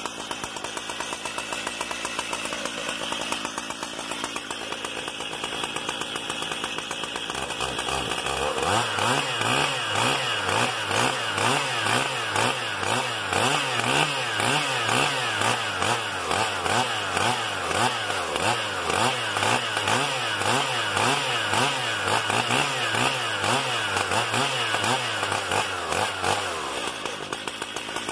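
STIHL MS 880 two-stroke chainsaw running out of the wood: steady at first, then from about eight seconds in revved up and down over and over, about once a second, before dropping back to idle near the end.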